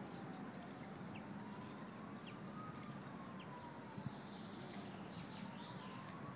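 A faint, distant siren wailing slowly up and down, with a few short bird chirps over a low steady background hum.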